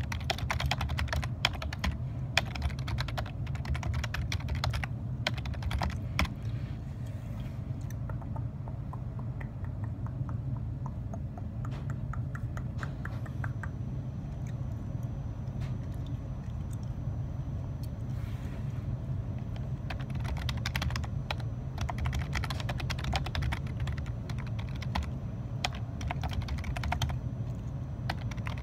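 Typing on a computer keyboard: runs of quick keystroke clicks, thinning out to scattered taps in the middle before picking up again for the last several seconds. A steady low hum sits underneath.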